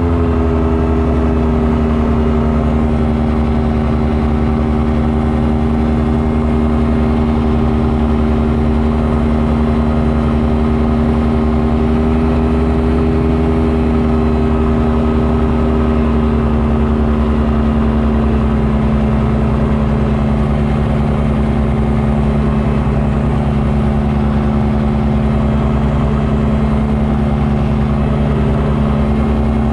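Light aircraft engine droning steadily, heard from inside the enclosed cockpit. Its note drops slightly just after the start as power comes back, then holds level.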